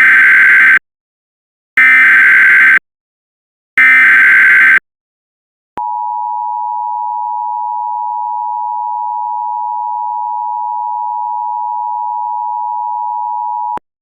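Emergency Alert System broadcast signal: three one-second bursts of SAME header data tones, about two seconds apart, then the two-tone EAS attention signal held steady for about eight seconds before cutting off sharply. It marks the start of an emergency alert, here an all-clear notice.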